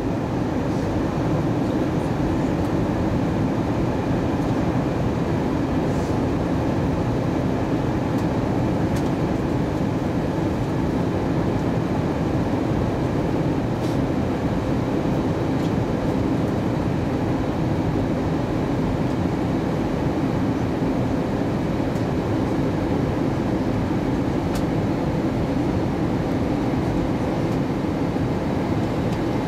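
Steady cabin noise inside an Airbus A320 on descent: the even rush of engines and airflow, with a faint steady hum running under it.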